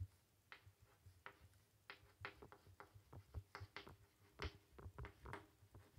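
Chalk writing on a chalkboard: faint, irregular light taps and short strokes of the chalk against the board, many in quick succession.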